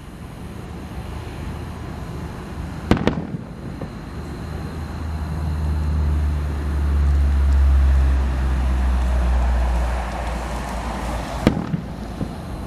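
Aerial fireworks going off: a couple of sharp bangs about three seconds in and another near the end, with a low rumble swelling in between.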